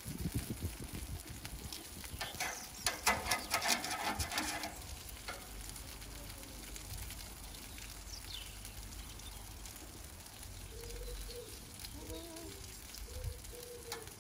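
Sausages and burgers sizzling on a gas barbecue grill, with metal tongs clicking and clattering on the grate as sausages are turned, about two to five seconds in.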